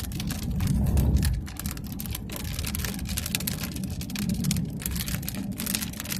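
Raindrops striking a moving vehicle's windshield and body in irregular ticks, over the low rumble of the vehicle driving a dirt road in storm wind, heard from inside the cabin. The rumble swells about a second in.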